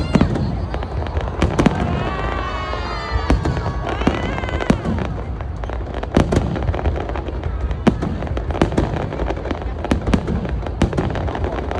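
Aerial fireworks display: a dense, irregular run of bangs and crackles over a continuous low rumble.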